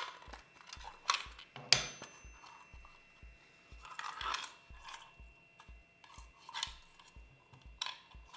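Metal hand tools clinking and clattering as they are handled during a 3D printer nozzle change: a few scattered clinks, with a sharper clank ringing briefly near two seconds in.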